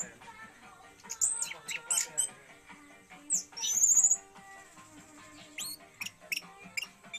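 Orange-headed thrush (anis merah) singing, practising the 'teler' song style: short, sharp rising phrases and fast high trills, separated by pauses. Faint background music plays underneath.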